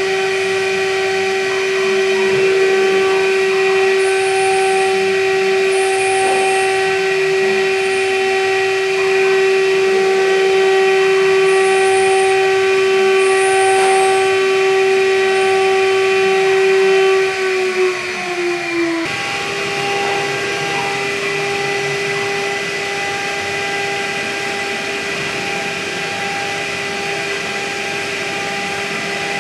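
High-speed milling spindle of a PAX6050V2 CNC milling machine cutting plastic with a small end mill: a loud, steady high whine with overtones over the hiss of cutting. About 17 seconds in the pitch sags a little, and near 19 seconds the sound switches abruptly to a slightly higher, steady whine.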